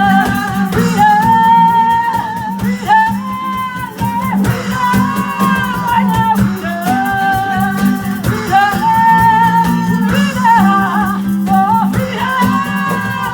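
Soul band music: a melody line of held notes that bend and slide, over guitar, a steady bass and a shaker-like rattle.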